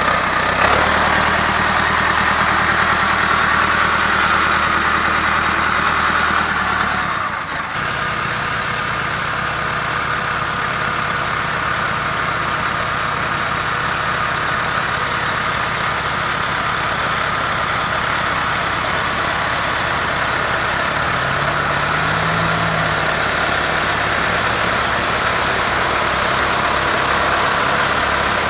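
Massey Ferguson 390 tractor's diesel engine running steadily under load. Its note changes with a brief dip about seven seconds in, and the pitch briefly rises and falls about two-thirds of the way through.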